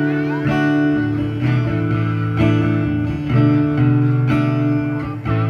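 Acoustic guitar strummed, with a new chord about once a second.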